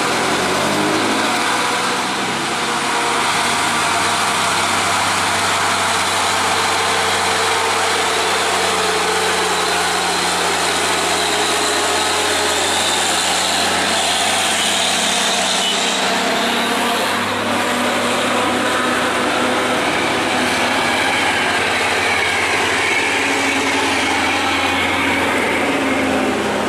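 Mitsubishi Fuso tanker truck's diesel engine running steadily as the truck rolls past slowly on a downhill bend, mixed with a passing motorcycle and, near the end, a line of cars and motorbikes.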